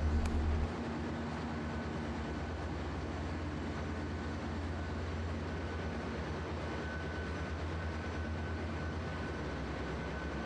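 Steady drone of ship's engine-room machinery running, with a deep hum under it. A thin, high, steady whine comes in about halfway through.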